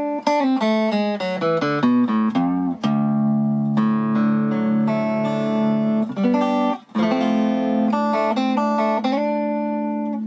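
Recording King archtop guitar with a new brass nut, played in quick single-note runs and then left ringing on held chords, with a short break about two-thirds of the way through. The player hears its tone as brassy.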